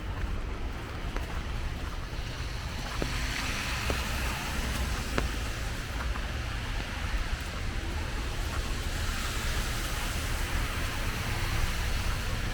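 Rainy city street: traffic hissing on wet pavement, swelling a few seconds in and staying up, over a low rumble.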